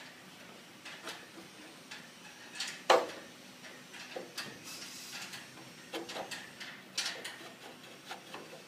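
Scattered metal clicks and clanks as a steel control rod with a coil return spring is worked by hand against a notched lever plate on a small wheeled combine harvester. The loudest knock comes about three seconds in, with a few more in the second half.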